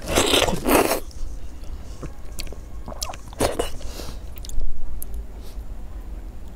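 Close-miked eating sounds: biting and chewing soft, sauce-covered food, with fingers tearing at it. Loud noisy bursts come in the first second and again about three and a half seconds in, with scattered small clicks between.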